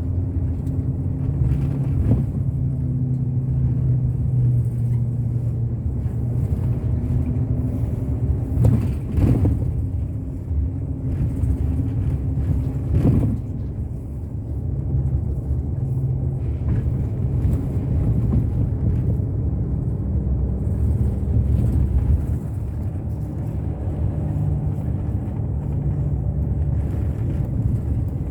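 Bus on the move: a steady low engine drone with road noise, and two short knocks about nine and thirteen seconds in.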